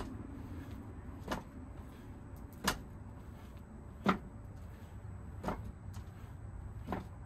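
HEMA sabre tip striking a homemade standing target in repeated extension thrusts: six short sharp knocks, about one every second and a half.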